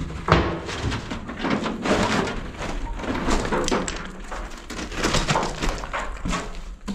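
Close, irregular crunching, scraping and clattering of gravel and debris as someone clambers and moves about over a rubble-strewn floor.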